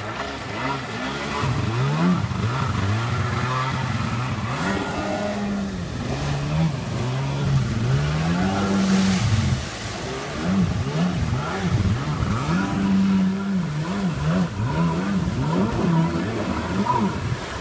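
Stand-up jet ski engine revving up and down over and over as the rider throws it through tight spins, with quicker rises and falls in the second half. A rush of water spray is heard about nine seconds in.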